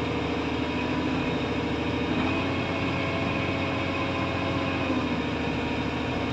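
SANY SY215 hydraulic excavator running steadily, its diesel engine and hydraulic pump heard from inside the cab. The note shifts about two seconds in and shifts back near five seconds, as the joystick is worked for a pressure check.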